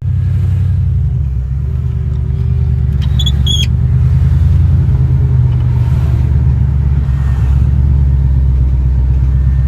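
Mercedes-Benz W124 E500's M113 V8 running at steady revs: a loud, deep, even exhaust rumble that starts abruptly. A brief high chirp sounds about three seconds in.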